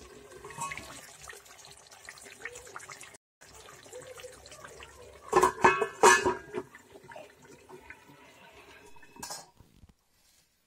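A glass pot lid being handled by its knob and clinking against the rim of a cooking pot, with a cluster of sharp clinks about five to six seconds in and one more near the end. A faint steady hiss runs beneath.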